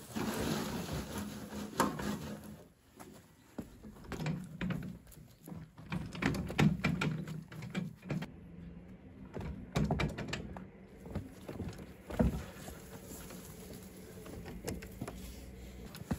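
Soil sliding out of a tipped wheelbarrow onto a pile. Then the empty wheelbarrow rattles and knocks as it is wheeled over a rough, stony path, with footsteps.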